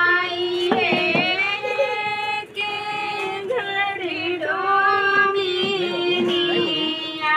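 A woman's voice singing a Chhath Puja devotional song in long, wavering held notes, with a short break about two and a half seconds in.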